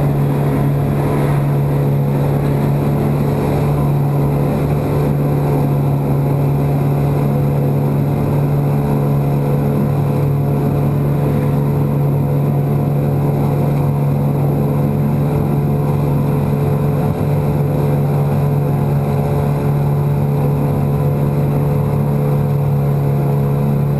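Yamaha 9.9 hp two-stroke kicker outboard running steadily at wide-open throttle, pushing a loaded 17-foot boat, with an unchanging drone.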